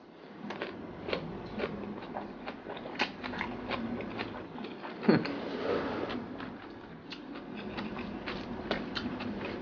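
Close-miked chewing of a mouthful of rice and omelette eaten by hand, with many small wet mouth clicks and lip smacks and one louder mouth sound about five seconds in.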